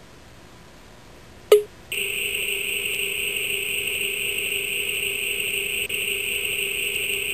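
A sharp click, then, about two seconds in, a steady electronic tone from the Star7 prototype handheld's small Game Boy speakers, held at an even pitch as the device plays its boot animation.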